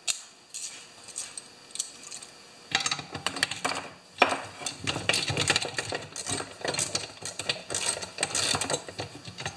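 Hand ratchet clicking in quick runs, starting about three seconds in, as a spark plug is run into a chainsaw cylinder, with light metal clinks.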